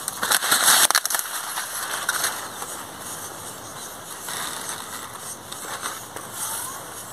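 Rustling and crackling of corn leaves brushing against a hand and the phone, loudest in about the first second, then softer rustling.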